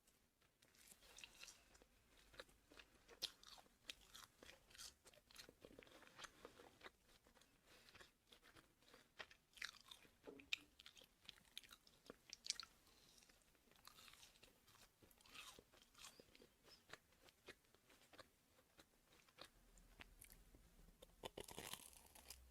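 A person chewing and crunching food close to the microphone: many quick, irregular crisp crunches, a little louder near the end.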